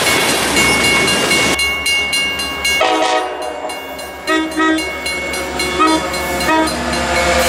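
Freight train of covered hopper cars rumbling past on the rails, then a Metra diesel commuter locomotive approaching and sounding its horn in a series of short blasts.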